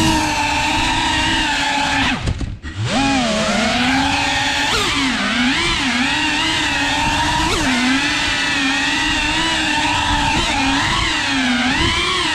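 Cinewhoop FPV drone's small brushless motors and ducted propellers whining, the pitch wavering up and down with the throttle. About two seconds in, the throttle is cut briefly: the whine drops away in pitch almost to nothing, then spools back up.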